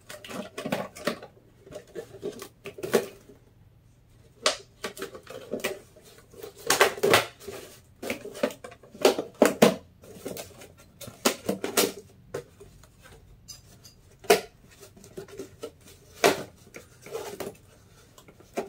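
Handling noise as a fabric gnome hat is worked by hand onto a wicker basket: irregular rustling and crinkling of the fabric with scattered small clicks, coming in short bursts with quiet gaps between.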